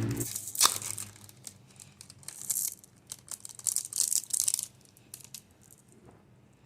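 Plastic snack wrappers crinkling and tearing in irregular bursts, with a sharp rip just under a second in. A low hum stops a moment before.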